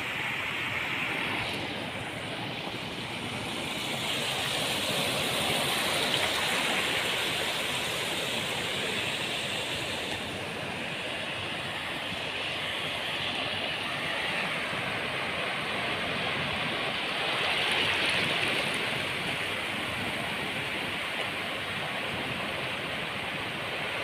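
Sea waves washing onto a beach: a continuous surf noise that swells twice, about four seconds in and again past the middle.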